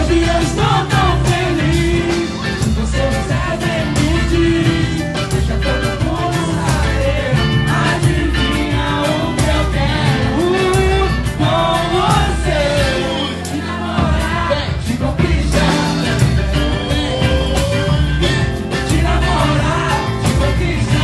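Live samba music: a group singing over dense, quick percussion with a steady low beat.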